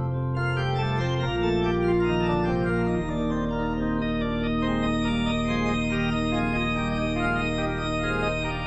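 Slow background music of long held chords over a deep sustained bass note, the harmony shifting about a second in and again about three seconds in.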